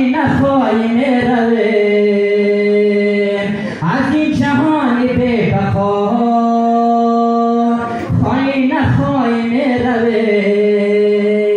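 A man's solo unaccompanied voice sings a devotional chant into a microphone. He holds long notes, ornamented with bending, wavering turns, and breaks the phrases briefly about four and eight seconds in.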